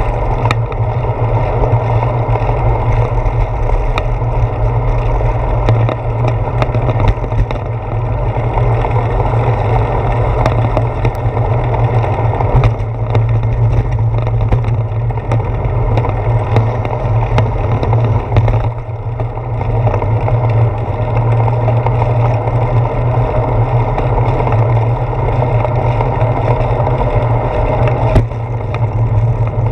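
Steady wind and road rumble on a handlebar-mounted GoPro Hero 4 on a moving bicycle, with scattered sharp clicks and knocks.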